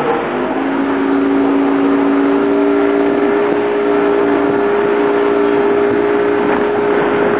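Motorboat underway: a steady engine drone over the rush of wind and water, its pitch stepping up slightly about half a second in.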